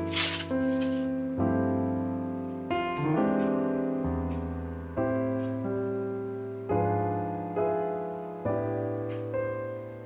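Soft background piano music, slow chords that are struck and fade. In the first second a crinkling rustle of plastic wrapping being pulled off, with a few faint ticks of handling later.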